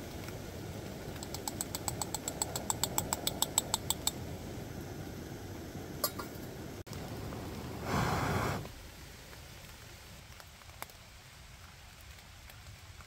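Quick run of light metal taps, about six a second for about three seconds, getting louder: the grinder's catch cup being knocked against a stainless pour-over dripper to tip in the ground coffee. A single click follows, then a short rushing burst near the end over the steady hiss and patter of light rain.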